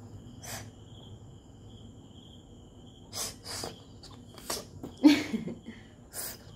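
A young child's short breathy puffs and sniffs at her mouth, about half a dozen scattered through, the loudest about five seconds in with a brief low vocal grunt.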